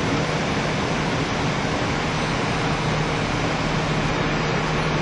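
Steady running noise inside a Kiha 75 diesel railcar between stations: an even rush of wheel and rail noise with a low, steady engine hum underneath.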